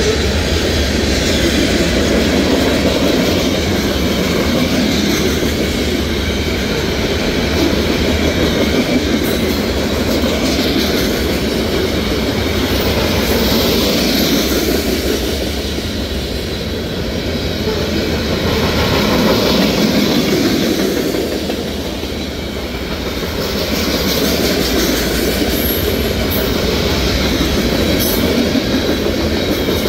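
CSX freight train's hopper cars rolling past close by: a continuous loud rumble of steel wheels on the rails that swells and eases slightly as the cars go by.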